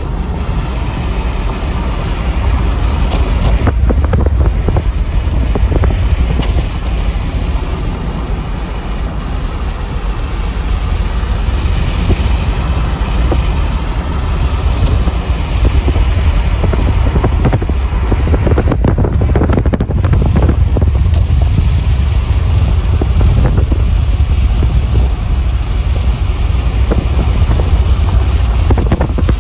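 Car driving on a wet highway: a steady, loud rumble of tyre and wind noise, heaviest in the low end, with no change in pace.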